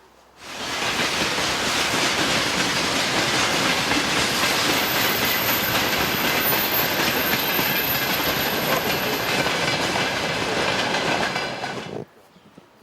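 A train passing close by, its wheels running steadily over the rails with a thin high squeal for a few seconds in the middle. It comes in suddenly about half a second in and cuts off near the end.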